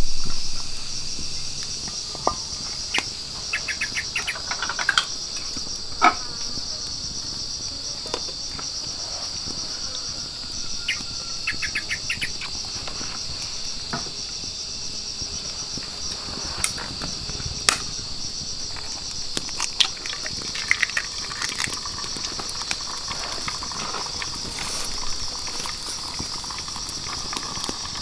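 Steady, high-pitched chorus of insects, with scattered clicks and knocks throughout.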